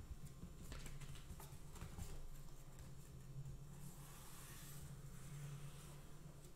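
Faint felt-tip marker strokes and light taps of handled paper, with a soft scratch of the marker about four seconds in, over a steady low hum.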